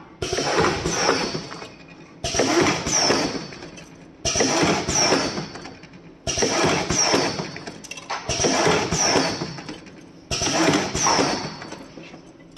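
Kebab-skewering machine cycling about every two seconds: each stroke starts with a sudden mechanical clatter, carries a brief high falling whine, and fades over a second or so.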